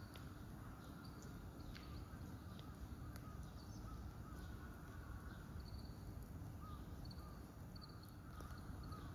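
Faint outdoor ambience with a steady low rumble and scattered distant bird calls: short high chirps and a few lower calls.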